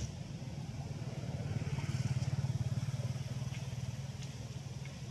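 A motorcycle engine passing by, its low rapid chugging growing louder to a peak about two seconds in and then fading.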